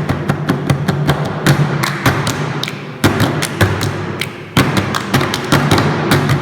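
Percussive music: rapid sharp strikes, several a second, over a steady low tone.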